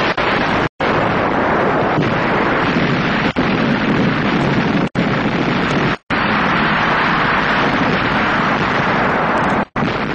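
Dense, steady roar of explosions and battle noise. It cuts out for an instant about a second in, a little past halfway and near the end.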